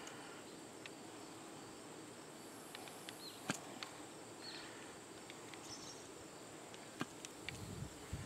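Faint outdoor ambience with a steady, high insect drone, and a few faint sharp clicks from hand tools being handled, the loudest about three and a half seconds in and again at about seven seconds.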